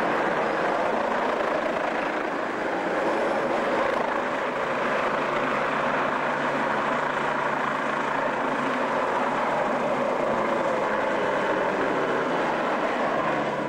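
Light helicopter flying close by, its rotor and engine noise steady and loud throughout.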